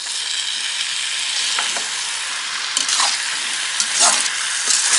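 Kwetiau noodles stir-frying in a wok, sizzling steadily, with a few scrapes of the spatula against the pan.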